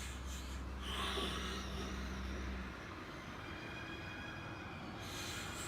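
A person breathing out slowly, twice, over a steady low hum that stops a little under three seconds in.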